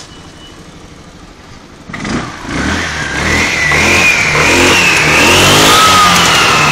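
Kymco Xciting 250 scooter's single-cylinder four-stroke engine idling, then revved up about two seconds in and kept at high revs, its pitch rising and falling as the throttle is worked. The revs climb and drop back cleanly, the sign of a healthy engine.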